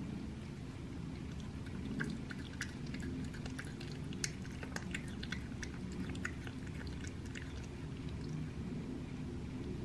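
Cat chewing and licking wet raw rabbit meat: quick wet clicks and smacks, busiest from about two to seven and a half seconds in, over a steady low background hum.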